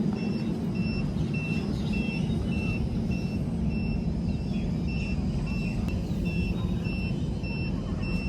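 A steady low hum with a short high-pitched beep repeating evenly about twice a second.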